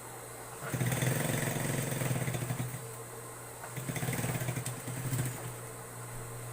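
Electric sewing machine stitching in two runs of about two seconds and a second and a half, its motor humming steadily between them.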